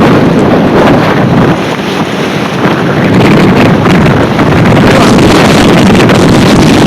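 Strong gusty wind blasting an unshielded microphone, a loud, continuous buffeting that eases slightly about two seconds in and then picks back up.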